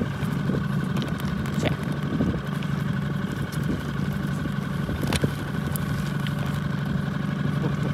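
Small outboard motor, the boat's 5 hp four-stroke Yamaha, running steadily at low speed as an even hum. A single sharp click about five seconds in.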